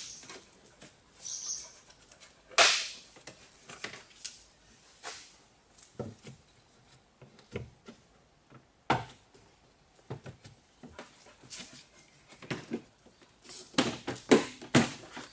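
Plastic interior trim panel in a Peugeot 406 Estate's boot being prised off by hand: irregular sharp clicks, snaps and knocks as the panel comes off its clips and is handled. The loudest snap is about two and a half seconds in, and a quick cluster of knocks comes near the end.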